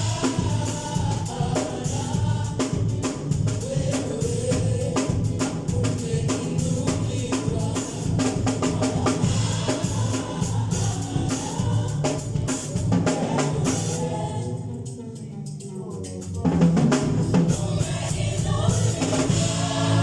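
Live gospel worship music: a group of singers over a drum kit. About three-quarters of the way through, the drums and upper sounds drop out briefly, leaving a quieter low sound, then the full band comes back in louder.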